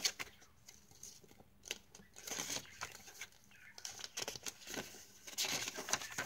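Paper and card pages of a handmade junk journal rustling and shuffling as they are turned and handled, in a few soft bursts with light ticks between.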